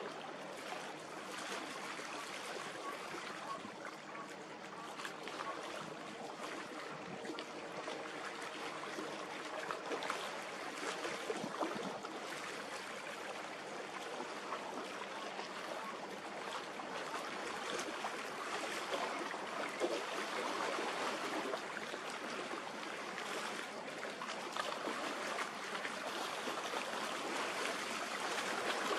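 Small waves lapping and trickling at the water's edge: a steady rippling wash. A faint, steady low hum runs under it for roughly the first twelve seconds.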